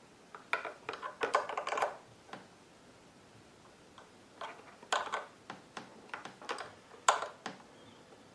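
Irregular small clicks and taps of a hand tool tightening the screws of a generator carburetor's float bowl. There are two clusters of clicks, one early and one in the second half.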